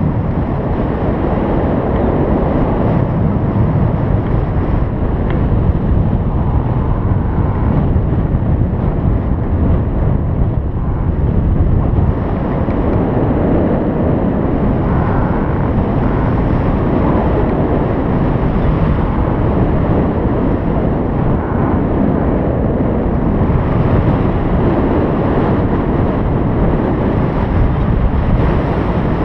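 Loud, steady wind noise buffeting the microphone during a paraglider flight.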